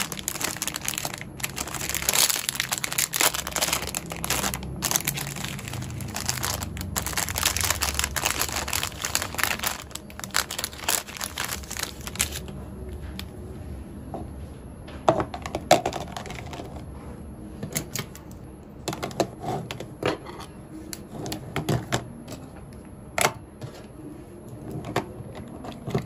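Crinkling of a plastic packet of highlighter pens being handled and opened, dense and crackly for about the first twelve seconds. After that, scattered light clicks and taps as pens and small stationery are set down on a wooden desk and dropped into a plastic pen holder.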